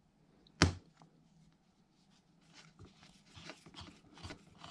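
One sharp metal knock about half a second in, then a run of soft, irregular clicks and ticks from a two-prong gear puller as its threaded rod is turned, forcing a press-fit distributor gear along the shaft.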